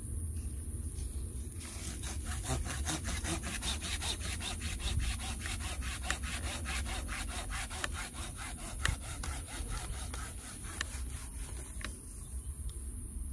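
Hand pruning saw cutting through a live loa (cluster fig) branch in quick, even back-and-forth strokes, about four or five a second. The strokes start about a second and a half in and thin out near the end.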